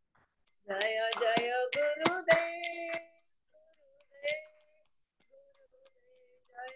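A short burst of devotional singing with small hand cymbals struck several times, their high ringing carrying on. It lasts about two seconds, then gives way to a faint held voice tone and one more strike.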